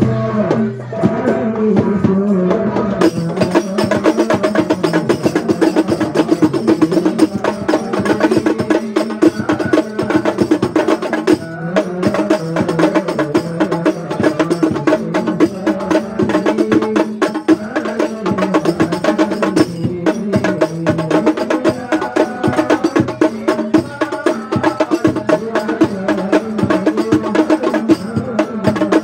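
Hadrah ensemble of hand drums playing a dense, fast interlocking rhythm.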